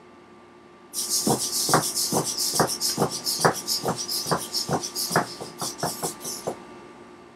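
Micro servos (Tower Pro MG90S) of a hexapod robot buzzing as it walks, with its aluminium legs tapping on a hardwood floor about two to three times a second. The walking starts about a second in and stops near the end.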